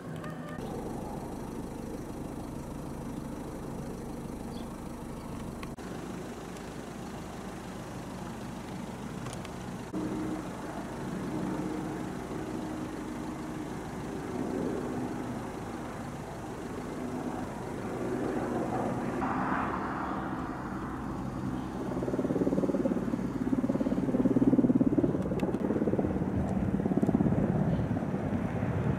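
Firefighting helicopter in flight, its rotor and turbine engine running steadily and growing louder in the second half as it comes closer.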